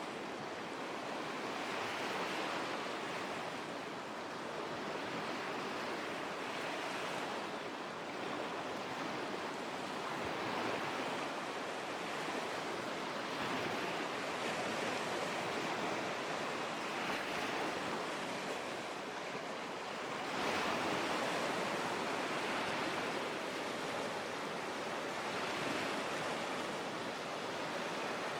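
Lake waves washing in: a steady splashing wash of water that swells and eases every few seconds, a little louder about two-thirds of the way through.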